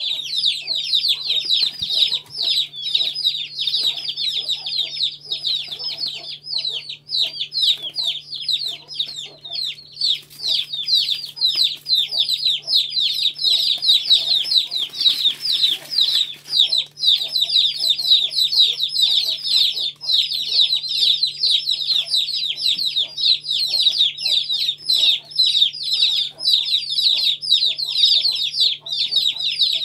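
A brood of Aseel chicks peeping nonstop, many short, high, falling cheeps overlapping one another.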